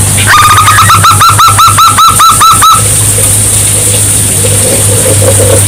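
Zebra dove (perkutut) song: a fast run of clipped, high, arched coo notes at about seven a second, lasting about two and a half seconds. It is followed by a lower, rolling coo near the end, over a steady hum and high hiss.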